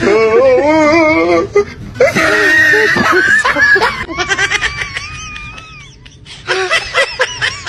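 Human laughter: a long wavering, wailing laugh, then high gliding squeaks, and a run of short quick laughs near the end.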